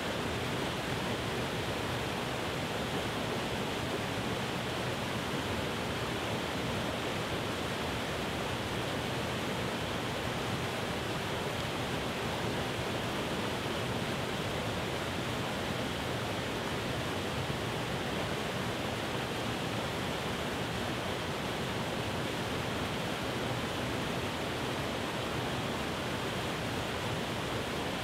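Small waterfalls cascading over rock ledges into pools: a steady rush of falling water.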